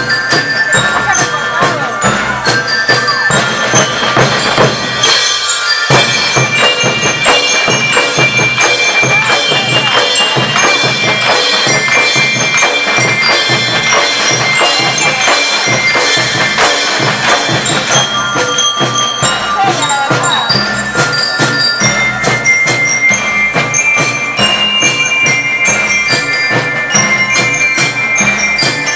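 School marching rhythm band playing: drums beat a steady rhythm under a bright melody on bell lyres and xylophone.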